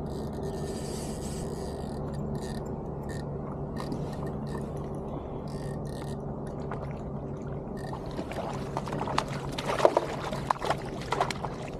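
Hooked rainbow trout thrashing and splashing at the surface beside a kayak: a burst of sharp splashes starts about eight and a half seconds in and is loudest near the end. A steady low hum runs underneath.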